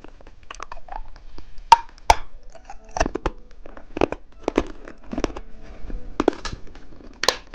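Hard candy being bitten and crunched close to the microphone: irregular sharp cracks and crunches, about one or two a second.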